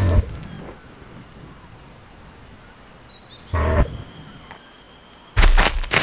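Played-back animal sound effects for a virtual rhinoceros: a short low call at the start and another about three and a half seconds in, then a run of heavy low thuds near the end as it walks. A thin steady high whine sits underneath.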